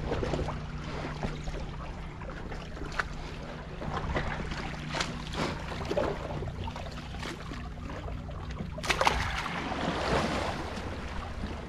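Small waves lapping and splashing against jetty rocks, with scattered sharp clicks and taps, over a low steady hum. A louder rush of noise comes about nine seconds in.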